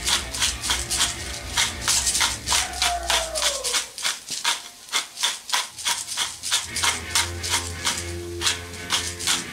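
Hand spice grinder being twisted over a pot of onions: a steady run of dry, crunchy grinding rasps, about three to four a second. A brief falling tone sounds about three seconds in.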